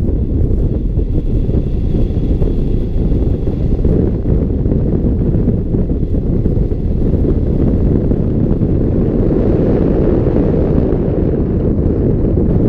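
Wind from a hang glider's flight rushing over a wing-mounted camera's microphone: a loud, steady low rumble of buffeting air. A faint high tone sits over it about one to four seconds in.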